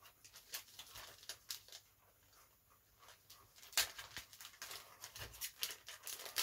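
Clear plastic packaging crinkling as fingers pick at and pull open the wrapping, a run of small sharp crackles with a quieter spell in the middle and a sharper crackle a little before four seconds in.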